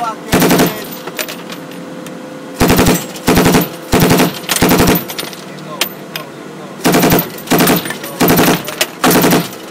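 Machine gun firing short bursts of automatic fire from an Army gun truck's turret, heard from inside the vehicle: about ten bursts of roughly half a second each. There is one pause about a second in and another around six seconds in.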